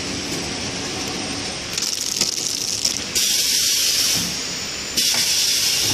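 ATM 700X flow-wrapping packing machine running with a steady hiss, and two louder bursts of hiss, each about a second long, about three and five seconds in.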